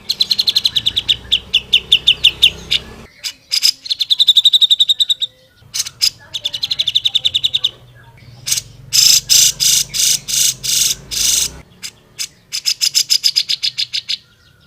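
Cucak jenggot (grey-cheeked bulbul) singing loudly in rapid, rattling trills of fast repeated notes. The phrases last a couple of seconds each, with short breaks between them.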